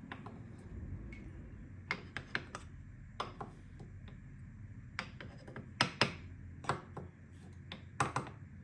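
About a dozen scattered light clicks and taps over a low steady hum, like small objects being handled and set down.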